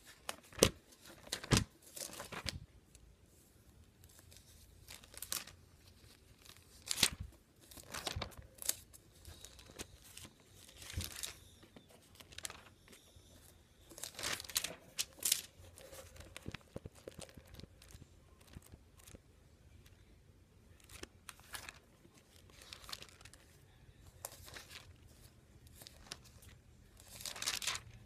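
Bible pages being leafed through and turned, irregular papery rustles every second or so as a passage is looked up.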